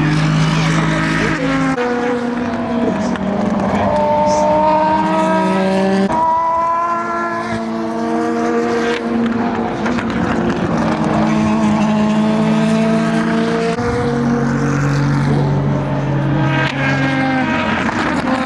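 Endurance race car engines (Le Mans hypercars and GT cars) running at speed, several cars in turn, their engine notes rising and falling through gear changes. The sound changes abruptly about two, six and fourteen seconds in.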